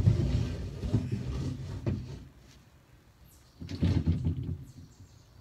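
Bumps and knocks from movement at the table, then a patio chair being dragged aside about four seconds in.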